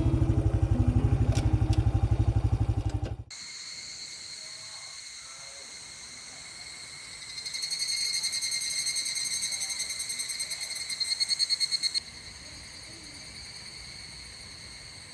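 A Honda CT125 Hunter Cub's single-cylinder engine runs for about three seconds, then cuts off suddenly to evening cicadas (higurashi) calling. Their high, fast-pulsing chorus swells louder from about halfway through and drops back near the end.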